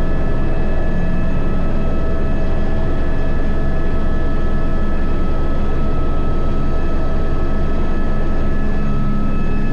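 Helicopter running on the ground with its rotor turning, heard from inside the cabin. A steady turbine whine with several high tones sits over a low, fast, even rotor beat.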